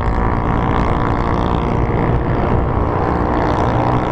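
Motorcycle engine running while riding, with a steady low rumble of wind and road noise over it. It is picked up through a lavalier microphone on a helmet camera with the visor open.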